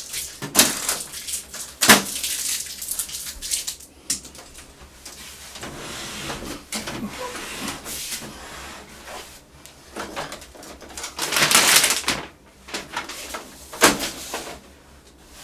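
Blue packing tape being peeled off a new colour laser printer's plastic casing: rasping rips and rustling of tape and film, with a few sharp clicks and knocks on the plastic. The loudest knock comes about two seconds in, and a longer rip comes about three quarters of the way through.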